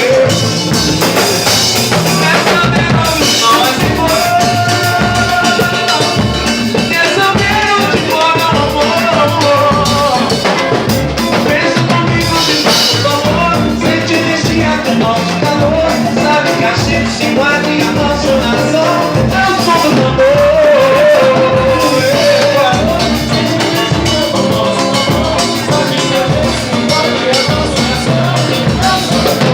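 Live band playing, with a singing voice over drums keeping a steady beat.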